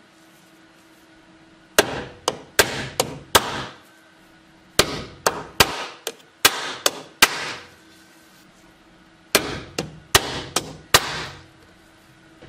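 Hammer striking a steel punch to set a rivet through a leather helmet liner into the steel shell: three runs of sharp metallic taps, five to seven strikes each, with short pauses between runs.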